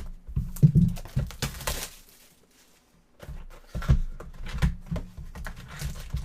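Irregular crinkling, clicking and rustling as a sealed box of trading cards is unwrapped and opened by hand, with a short pause about a third of the way through.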